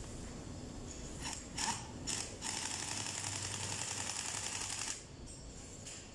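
Pneumatic impact wrench hammering on a bolt of a hydraulic gear pump: two short bursts, then one longer run of about two and a half seconds that stops abruptly.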